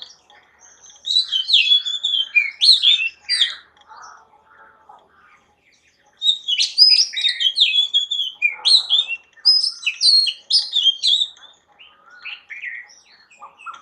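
Small birds chirping and twittering in quick, high, rapid notes, in two busy stretches with a short lull between them near the middle.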